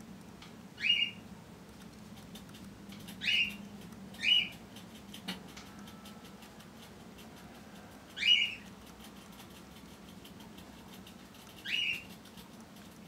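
A small animal chirping: five short, sharply rising chirps at uneven intervals, with a single click between the third and fourth, over a low steady hum.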